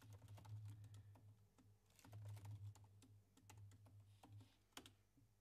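Faint typing on a computer keyboard: scattered light key clicks, with one sharper keystroke near the end. A low hum comes and goes underneath.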